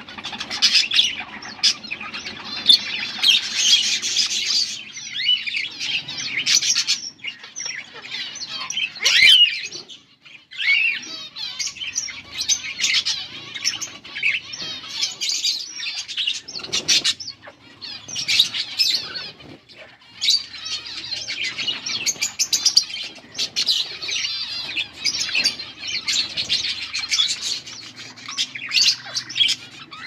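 A flock of budgerigars chirping and warbling almost without pause in rapid, overlapping chatter, with a couple of brief lulls. This is typical of budgies in breeding condition.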